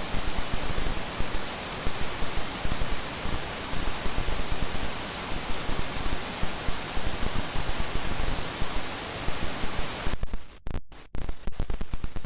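Loud static hiss with crackling peaks, which stutters and breaks up in short dropouts about ten seconds in.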